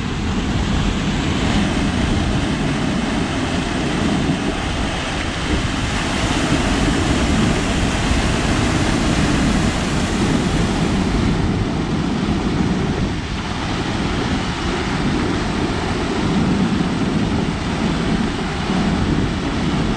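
Waterfall pouring into a rocky plunge pool: a loud, steady rushing of falling, churning water.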